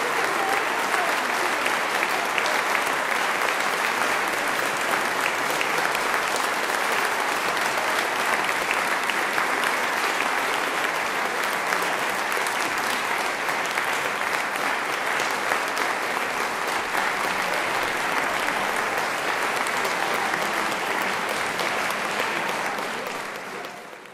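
A concert audience applauding steadily, a dense patter of many hands clapping that fades out near the end.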